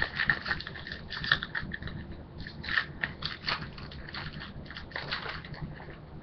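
Foil trading-card pack wrapper being torn open and crinkled in the hands: a run of irregular crackles and rustles.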